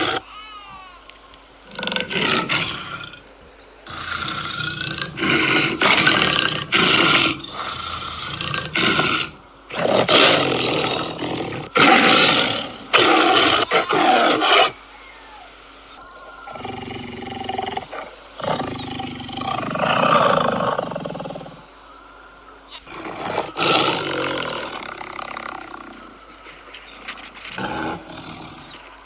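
Tiger roaring over and over, a long series of loud calls with short pauses between them, louder in the first half and softer later on.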